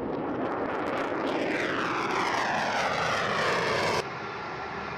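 Fighter jet climbing out on afterburner: loud jet noise with crackle, its pitch sliding down as it pulls away. About four seconds in it cuts off abruptly to a quieter steady noise.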